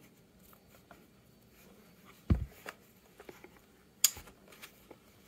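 Charging handle and bolt of an HK 416 .22 long rifle being worked by hand, giving a dull metallic clack about two seconds in, a lighter click just after it, and a sharp metallic click about four seconds in.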